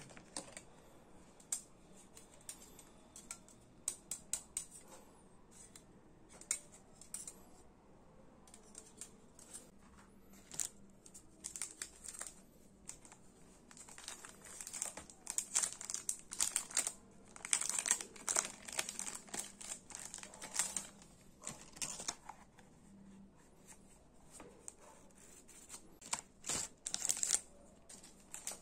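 Packaging being handled, rustled and torn open by hand, in irregular crackling bursts that grow busier about halfway through and again near the end.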